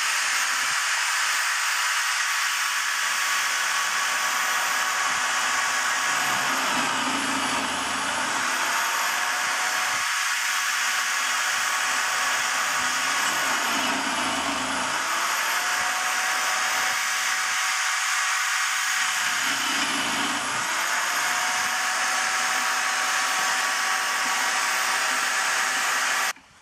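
Corded electric drill mounted in a drill-press stand running continuously with a high whine while a spade bit counterbores holes in a timber frame. Three times the motor slows and a low cutting rumble comes in as the bit bites into the wood: a third of the way through, halfway and three-quarters through. It cuts off suddenly at the end.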